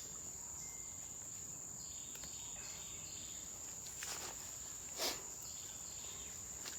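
Steady high-pitched drone of forest insects. Two brief rustles break in about four and five seconds in, the second louder.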